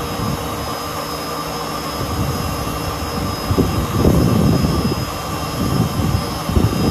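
Cirrus SF-50 Vision Jet's Williams FJ33 turbofan being dry motored: spun on its starter with no fuel, a steady turbine whine and rush of air, with a rougher low rumble swelling from about two seconds in. This is the fresh-water compressor rinse, with water being sprayed into the intake while the engine turns.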